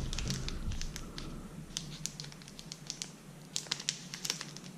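Light clicks and rustles of cardboard and plastic packaging being handled while a smartphone box is rummaged through and a small packet of spare earphone tips is taken out, over a faint steady low hum.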